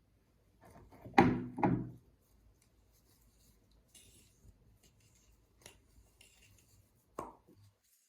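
Slime being stirred in a cup with a stick: soft rubbing and scraping, with two short louder squelching sounds about a second in and a brief one near the end.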